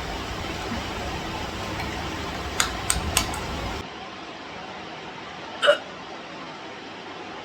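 A woman hiccuping once, a short sharp 'hic' late in the stretch. Earlier come three quick clicks close together.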